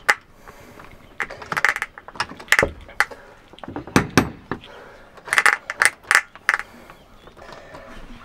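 Keys on a key ring jingling and clicking in a door lock as a key is worked to unlock it: a string of sharp metallic clicks and jingles in small clusters, spread over several seconds.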